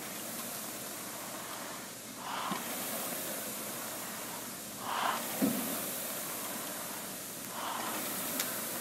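Air rowing machine's fan flywheel whooshing steadily, surging with each hard stroke about every two and a half to three seconds, with a short light knock at each stroke.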